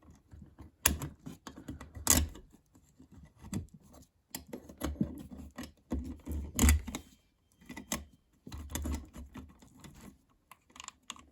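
Stiff electrical wires being folded and pushed into a wall switch box: irregular scraping and clicking, with a few sharper knocks.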